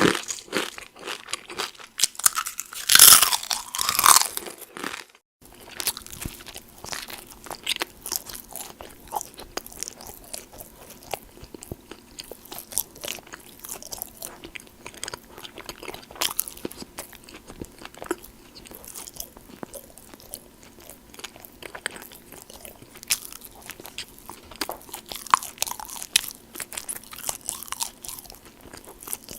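Close-up crunching as tortilla chips are bitten and chewed, loudest around three to four seconds in. After a sudden short break, softer, steady chewing of Christmas stollen with many small wet mouth clicks.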